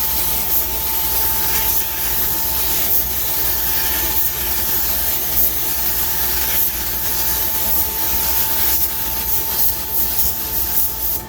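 Paint spray gun spraying a wet coverage coat over a wheel face with its fan pattern opened wide: a steady hiss with brief dips between passes, stopping right at the end.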